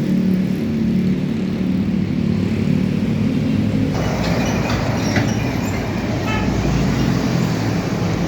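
A bus passing on the road: a steady low engine drone for about four seconds, giving way to broader road and traffic noise with a few faint, brief higher tones.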